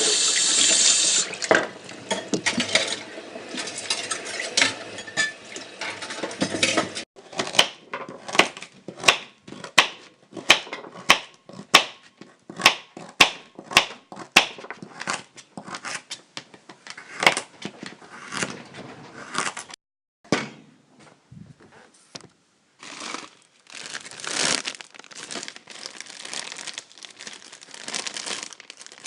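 Tap water running at the start, then a long run of short, sharp clacks and clatters, about two a second for a while, then more uneven, like cafe kitchen work.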